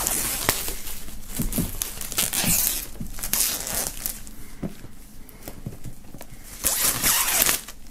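Clear plastic shrink-wrap film crinkling and tearing as it is pulled off a box by hand. It comes in uneven rustling surges, the loudest near the end.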